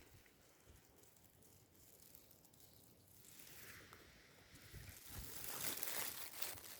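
Wind rustling through foliage: faint at first, then a gust that swells from about three seconds in into a crackly rustle, loudest near the end.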